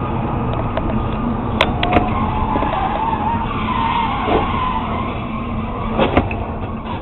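Car tyres squealing in a skid over steady road rumble, the squeal wavering and climbing in pitch for about three seconds, with several sharp knocks, two near the start and two near the end.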